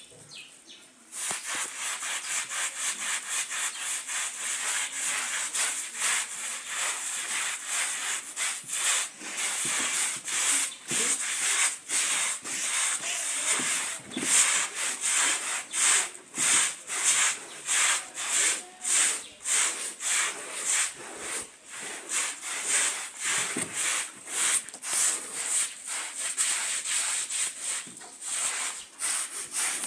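Carpet being scrubbed by hand with washing powder and detergent, quick rhythmic back-and-forth rubbing strokes that start about a second in and keep going.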